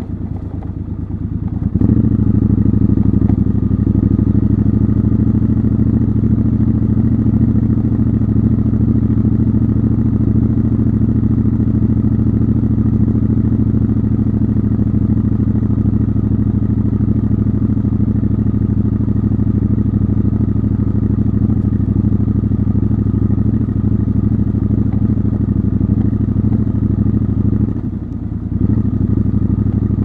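Triumph Scrambler motorcycle engine running steadily as the bike rides along a dirt path. It is quieter for the first two seconds, then picks up and holds an even note, briefly dropping off about two seconds before the end before picking up again.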